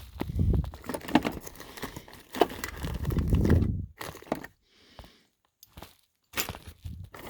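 Rummaging through gear: rustling, with scattered clicks and dull knocks of objects being handled. There is a near-silent gap from about four to six seconds in.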